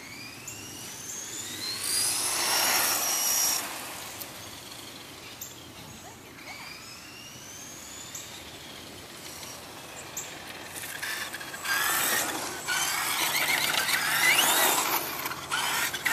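Radio-controlled stadium truck's motor and gearing whining, rising sharply in pitch each time it accelerates: once near the start, again about six seconds in, and several times in quick bursts near the end. Its tyres hiss on the pavement, loudest as it passes close, about two seconds in and again in the last few seconds.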